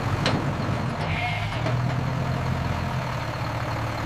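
Truck engine running with a steady low hum, with two short clicks near the start.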